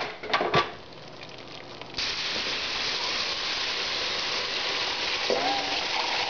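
A few short knocks, then about two seconds in a sudden, loud, steady sizzle as stock is poured into the pot of hot browned roux.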